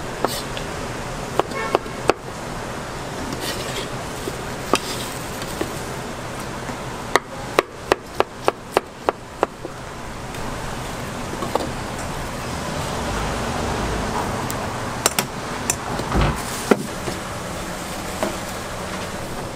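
Knife chopping on a wooden cutting board, slicing boiled offal and liver: sharp knocks, scattered at first, then a quick even run of about four chops a second around the middle, over a steady background hum.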